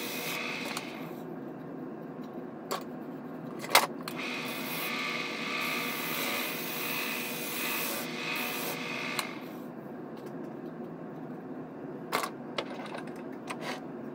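Bench-top wood lathe running steadily while a wooden hammer handle spinning on it is sanded by hand, the sandpaper rubbing with a hiss for about the first second and again from about four to nine seconds in. A few sharp clicks, the loudest near four seconds in.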